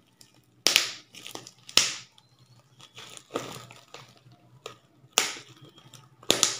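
Paper and plastic packaging crinkling as it is handled and unfolded, in about five sharp rustles with short quiet gaps between.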